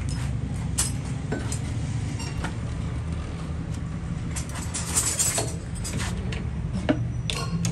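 Scattered metal clinks and knocks as a steel gear held in locking pliers is handled against a metal lathe and set onto its chuck, over a steady low hum. The loudest knocks come about five seconds in and again near the end.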